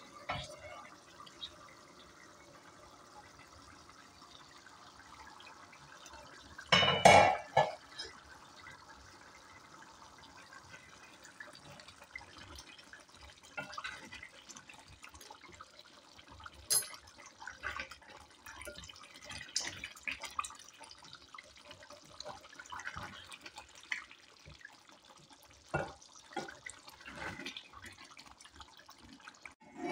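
Wooden spoon stirring a wet, saucy keema, potato and pea curry in an aluminium pot: irregular wet scrapes and small knocks against the pot. A loud metallic clank about seven seconds in as the steel pot lid is set down.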